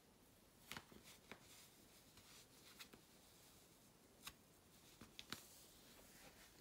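Faint crinkles and ticks of a shiny black PVC mini skirt being handled, about eight short ones scattered through a few seconds, over near-silent room tone.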